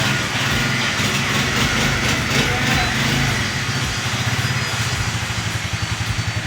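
Honda CD70's small four-stroke single-cylinder engine running steadily with an even, fast pulse.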